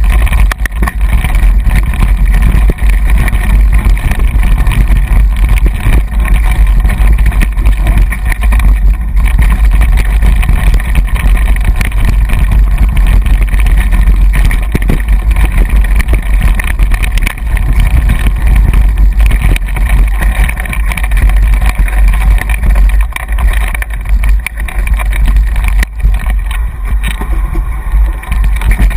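Heavy wind buffeting on a bike-mounted or helmet action camera's microphone, a constant low rumble, mixed with the rattling and knocking of a mountain bike riding fast over a rough dirt trail.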